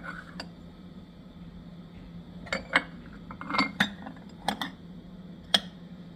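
Kitchenware being handled: a string of sharp clinks and knocks of dishes, cutlery or glass, about seven in all, over a steady low hum.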